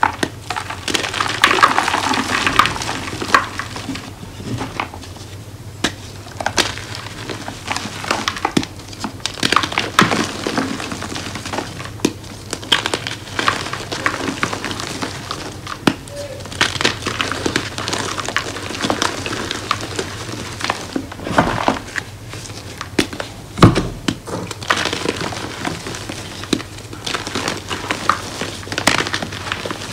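Blocks of homemade gym chalk crushed and crumbled by hand into powder: dry crunching and crackling with many sharp snaps as the blocks break. One louder knock comes about three quarters of the way through.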